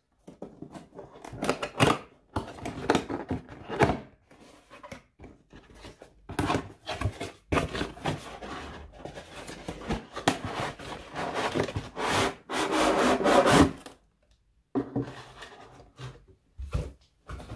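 Cardboard box being opened by hand: cardboard flaps and panels rubbing and scraping against each other in a run of irregular scrapes and knocks, with a brief pause near the end.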